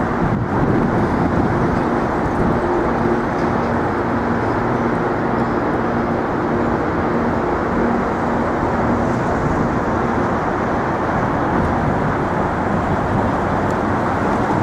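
Steady city street noise of passing traffic, with a low engine hum that fades out about ten seconds in.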